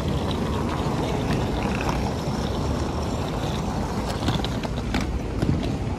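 Hard-shell suitcase wheels rolling over paving stones: a steady, loud rumble with scattered small clicks and knocks.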